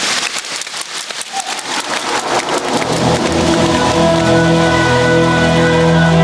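Stage-show backing track opening with a rain-like hiss and crackle. About three seconds in, held musical chords come in and swell, growing louder.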